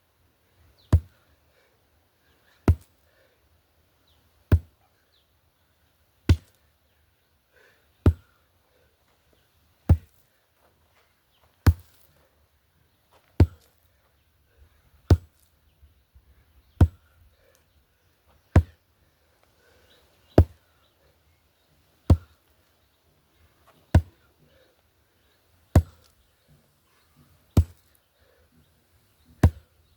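Sledgehammer strikes in a steady rhythm, one sharp impact about every second and three quarters, each dying away quickly.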